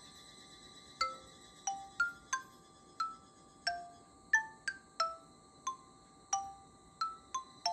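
Background music: a sparse, gentle melody of single bell-like notes, each struck and quickly dying away, at varying pitches, about one or two a second and unevenly spaced.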